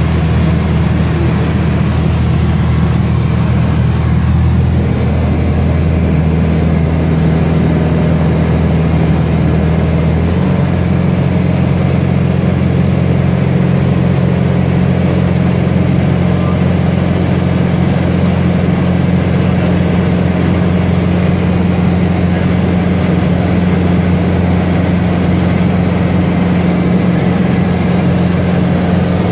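Piston engine and propeller of a small single-engine airplane droning steadily, heard from inside the cockpit; the drone shifts in pitch about ten seconds in, as the power setting changes.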